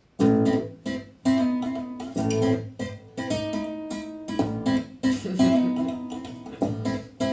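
Recorded music: an instrumental intro of plucked acoustic guitar chords in a repeating vamp, each chord struck sharply and left to ring before the next, about once a second.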